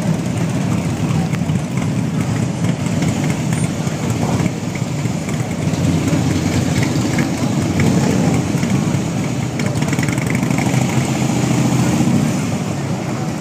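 A procession of Harley-Davidson V-twin touring motorcycles riding slowly past at low revs. It is a steady, dense engine rumble that swells louder about halfway through and again near the end as bikes pass close.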